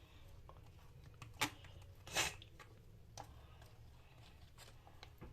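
A spoon spreading tomato sauce over a tortilla in a frying pan: a sharp tap about a second and a half in, a short scrape just after two seconds, and a few light clicks.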